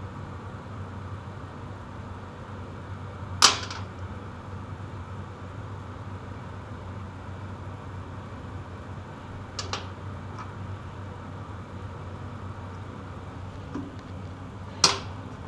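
Three sharp clinks of small metal parts and tools being handled and set down at a workbench: two loud ones, about three and a half seconds in and near the end, and a fainter one near the middle. A steady low hum runs underneath.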